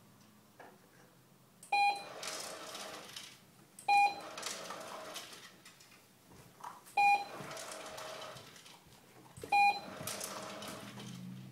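Remote dog-treat dispenser going off four times: each time a short beep, then about a second and a half of whirring and rattling as it dispenses dog food.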